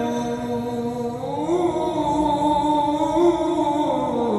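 A man's solo voice chanting Qur'anic tasbih in a drawn-out melodic style, holding one long note. About a second in, the note rises to a higher pitch and holds there, then falls back near the end.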